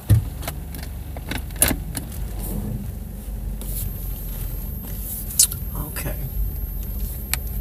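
Steady low rumble inside a car cabin, with a few sharp clicks and knocks.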